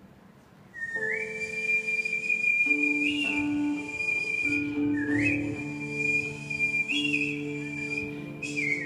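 Human whistling through a microphone in the Chinese xiao style: starting about a second in, long high held notes that slide up into pitch, with another upward slide around the middle and a step down near the end. Lower sustained guqin notes sound underneath.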